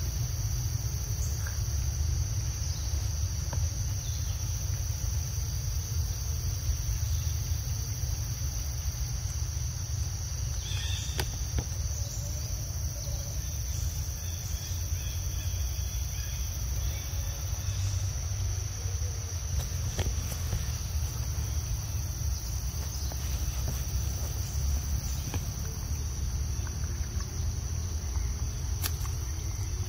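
Steady high-pitched chorus of insects, cricket-like chirring, over a constant low rumble, with a few faint clicks now and then.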